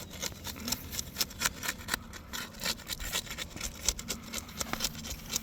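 Asphalt roof shingle's adhesive seal being pried apart, with dense, irregular crackling and scraping as the sealant strip tears loose.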